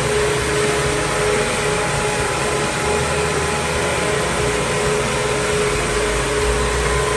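Stone CNC machining center running in a fabrication workshop: a loud, steady noise with a constant whine that holds throughout.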